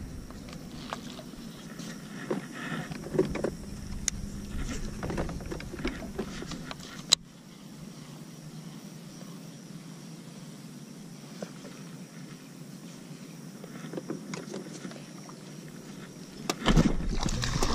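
Small handling clicks and rustles of a baitcasting rod and reel being worked by hand, with one sharp click about seven seconds in. A loud low rush of noise starts near the end.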